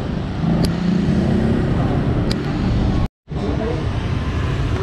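Busy city street traffic, vehicles passing with voices mixed in. The sound cuts out completely for a split second about three seconds in.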